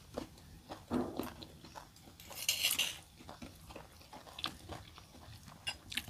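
A metal spoon scraping and clinking against a stone mortar as sambal is scooped out, with a longer scrape about two and a half seconds in. Soft chewing sounds from eating come in between.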